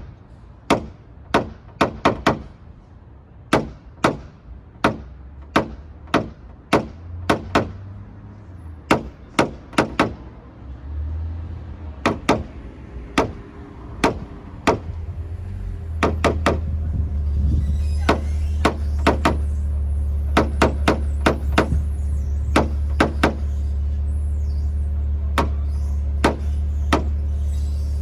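Repeated sharp taps, about one a second and often in quick pairs or runs, of a paintless dent repair hammer and knockdown tool on the car's body panel, tapping down the metal. From about sixteen seconds in a steady low hum runs underneath.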